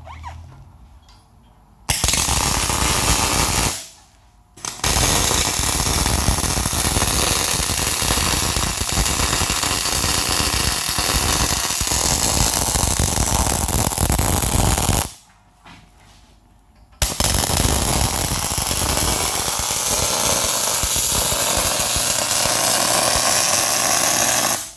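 Arc welding on a steel stair stringer: the arc crackles and sputters in three runs of welding, a short one of about two seconds, a long one of about ten seconds and one of about seven seconds, with brief pauses between them.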